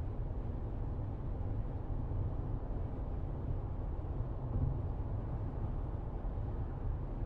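Steady low rumble of road and engine noise inside a moving car, picked up by a dashcam.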